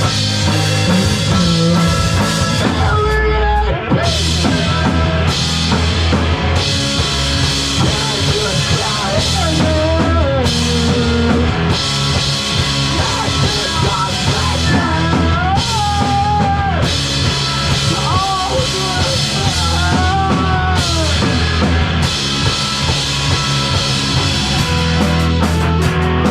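Live rock band playing loudly with a full drum kit, bass and guitar, with a melodic line that bends up and down in the middle.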